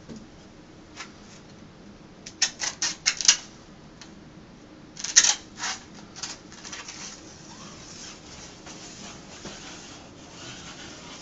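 Utility knife cutting through two overlapped layers of peel-and-stick wallpaper along a ruler: a quick run of sharp clicks about two seconds in, another cluster about five seconds in, then a steady faint scratching as the blade drags through the material.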